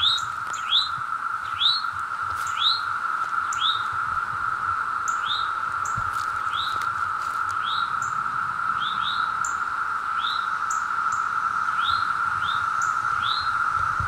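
Steady, loud drone of a chorus of Brood II periodical cicadas calling together in the trees. Over it, a bird repeats a short chirp about once a second.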